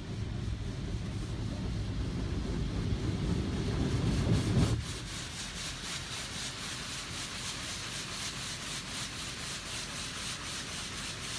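Automatic car wash heard from inside the car. A low rumble builds over the first few seconds and cuts off suddenly about five seconds in. After that, water spray hisses steadily against the windows and body.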